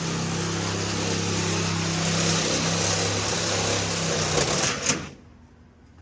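Power tool motor running steadily under a loud hiss, then stopping abruptly about five seconds in.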